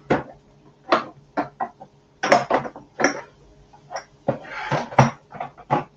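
Jars and containers knocking and clinking against each other and the shelf as someone rummages in an overhead kitchen cupboard: a string of about a dozen separate short knocks.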